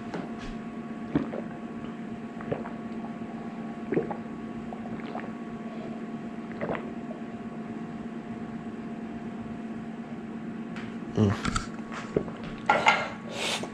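A person gulping water from a glass, faint swallows coming every second or so, over a steady low hum. A few louder noises come near the end as the glass is lowered.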